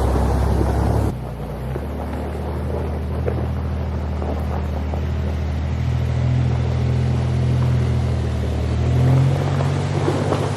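Toyota 4Runner engine running at low revs, a steady low hum that changes abruptly about a second in and then rises a little twice.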